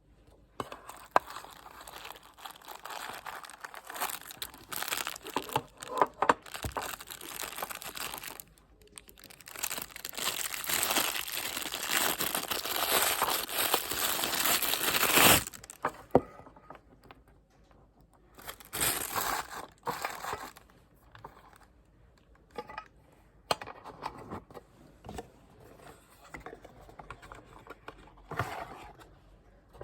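Packaging crinkling and tearing as it is unwrapped by hand. The rustling is on and off at first, then runs loud and continuous for several seconds through the middle and stops abruptly. After that come scattered lighter rustles and clicks.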